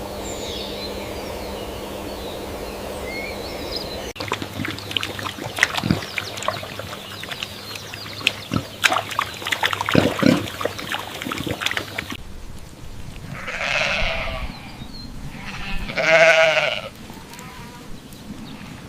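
A sequence of animal sound clips: faint bird chirps over a steady background hum, then an irregular run of sharp clicks and knocks, then two quavering bleats from a farm animal, the second one louder.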